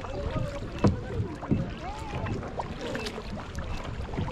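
Kayak being paddled: the paddle blades dip and splash on alternate sides over a steady low rumble of water and air, with a couple of sharp knocks or splashes about one and one and a half seconds in. Faint distant voices carry across the water.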